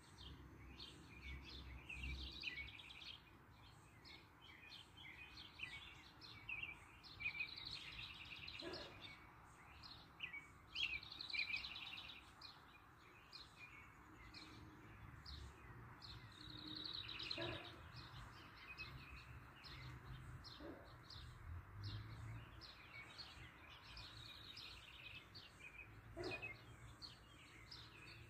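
Sparrows chirping: many short, faint calls with a few rapid trills, over a low background rumble.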